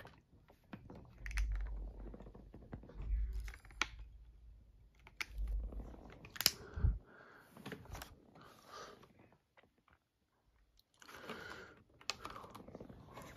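Plastic blister-card toy packages being handled: irregular crinkling and clicking of plastic and card, with low bumps in the first half and a brief quiet gap just after the middle.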